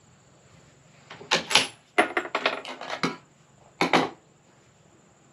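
Bolt of a .300 PRC bolt-action rifle being worked by hand: a run of sharp metallic clacks and rattles over about two seconds, then two more clicks about a second later.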